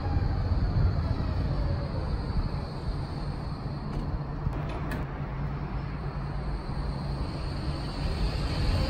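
A Cobra low-floor electric tram rolling into the stop and slowing to a halt. Its running gear makes a steady rumble, and a faint electric motor whine falls in pitch in the first second as it brakes.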